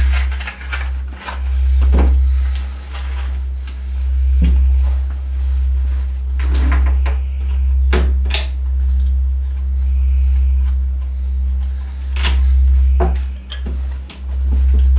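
Scattered knocks and clatters of small objects being picked up and set down on a wooden desk, over a loud, deep bass drone that swells and fades every couple of seconds.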